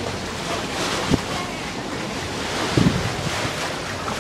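Wind buffeting the microphone over the wash of the sea around the boat, a steady rushing noise. A short knock about a second in and a couple of low thumps near the middle.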